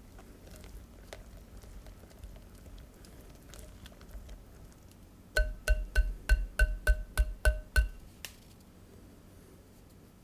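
A utensil tapped about ten times in quick succession, about four a second, against a ringing metal mixing bowl; each tap gives a short bell-like ring. Before the taps there are faint clicks and scraping of batter being stirred.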